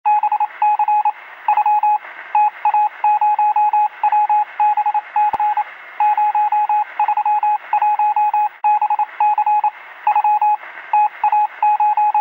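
Morse-code-style radio beeping: a single beep tone keyed on and off rapidly in short and longer groups, over a steady hiss through a narrow, radio-like sound.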